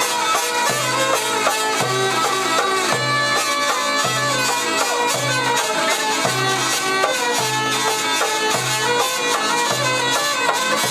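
Live folk music from hurdy-gurdy, violin and hand drum: the hurdy-gurdy's cranked wheel holds a steady drone under a moving melody, with the violin and drum playing along.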